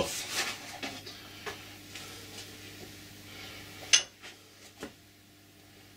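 Faint handling noises on a workbench: a brief rustle, then a sharp knock about four seconds in with a few light ticks after it, over a steady low hum.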